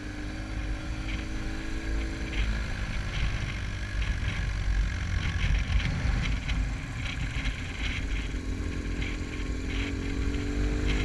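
Motorcycle engine running while riding, mixed with heavy wind noise buffeting a helmet-mounted camera. The engine note sinks into the wind after about two seconds and comes back in the last few seconds, rising slightly in pitch as the bike speeds up.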